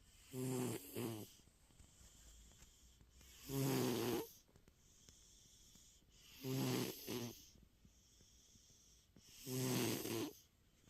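A sleeping cat snoring: four low, pitched snores about three seconds apart, some broken into two short pulses.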